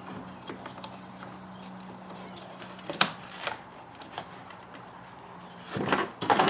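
Plastic side-mirror housing parts and wiring being handled and worked loose: scattered light clicks, one sharp click about three seconds in, and a louder burst of plastic clattering near the end, over a steady low hum.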